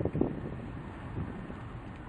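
Wind buffeting the microphone in irregular low gusts, the strongest one just after the start.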